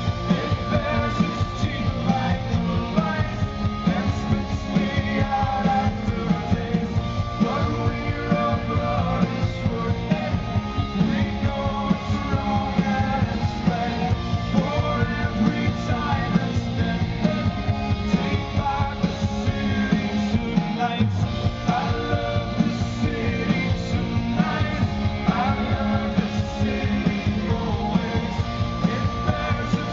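A live rock band playing at full volume, with a steady driving beat.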